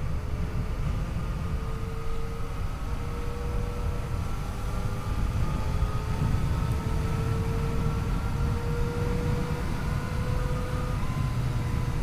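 Yamaha FJ-09's inline three-cylinder engine pulling the bike along, its note climbing slowly and then dropping near the end, under a heavy rumble of wind on the microphone.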